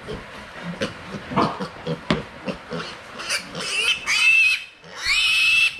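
A piglet squeals loudly and high-pitched twice, about three seconds in and again near the end, while it is held upside down for an injection. A few short grunts come before the squeals.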